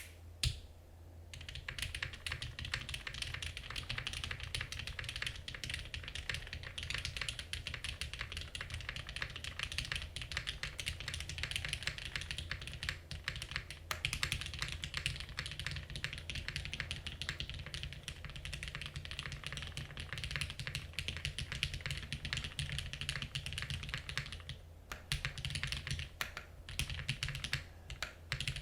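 Steady fast typing on a custom mechanical keyboard, a Noxary Vulcan Pro with an aluminium plate, Cherry MX Black linear switches lubed with Krytox 205g0, and GMK ABS keycaps. The key strokes run together in a dense clatter, with a brief pause late on.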